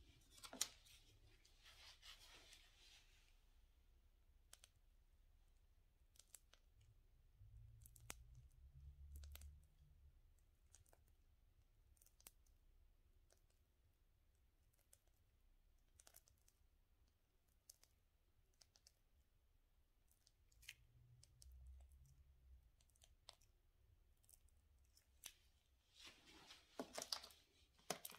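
Near silence with faint scattered clicks and a few soft rustles from handling a piping bag of buttercream.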